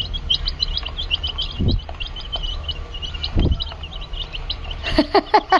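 Chicken chicks cheeping: a rapid, continuous stream of short high peeps while they feed on wheat flour. Two dull low thumps come in between.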